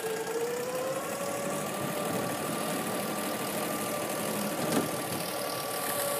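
23 hp Copperhead mud motor engine idling steadily, its speed rising slightly about a second in and then holding. One short knock sounds about three-quarters of the way through.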